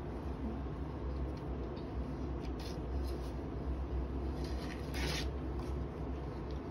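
Three-week-old puppies scrabbling and shuffling on a fleece blanket over a tile floor: short scratchy rustles, the loudest about five seconds in, over a steady low rumble.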